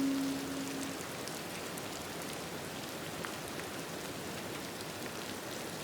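Steady light rain, an even hiss with scattered drop ticks. A ringing bell-like tone dies away about a second in.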